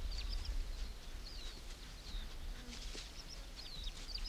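Small birds chirping: many short, high chirps and quick downward-slurred calls, scattered and overlapping, over a low steady rumble.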